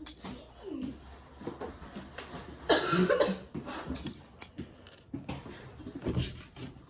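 A person coughing, loudest about three seconds in, with a few smaller sudden sounds around it.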